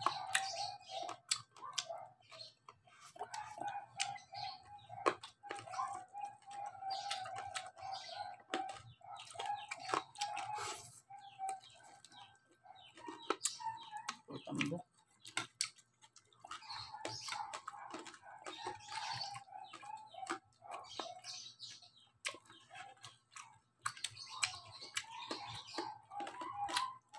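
Close-up chewing and crunching of crispy lechon kawali pork skin, a steady run of sharp crackles, with a wavering high-pitched call sounding on and off in the background.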